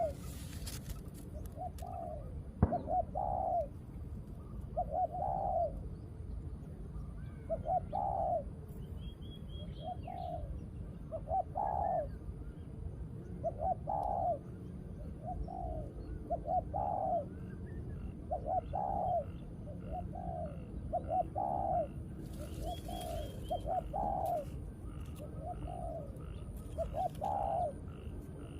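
Dove cooing: short groups of two or three soft rising-and-falling notes, repeated every second or two. A single sharp knock about two and a half seconds in.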